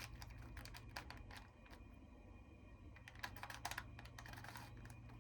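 Faint plastic clicking of a 4x4 Rubik's cube's layers being twisted by hand: quick runs of clicks with a lull in the middle.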